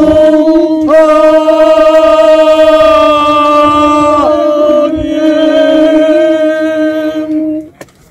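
Voices singing a slow song in long held notes. The pitch steps up about a second in, the note is held for about three seconds, and a second long note follows before the singing stops abruptly near the end.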